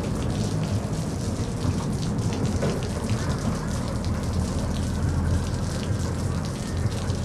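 Steady rumble and road noise inside a moving bus: a low engine drone under a hiss with light rattles.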